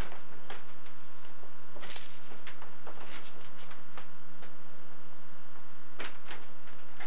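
Irregular small clicks and short splashy sounds of water at the aquarium surface as a snakehead works near the top, loudest about two seconds in and about six seconds in, over a steady low hum.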